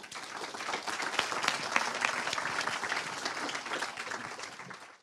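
Audience applauding: many hands clapping at once, rising quickly and thinning out near the end.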